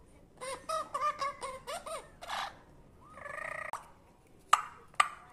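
Amazon parrot making a quick run of short chattering calls, then one longer call. Two sharp clicks come near the end.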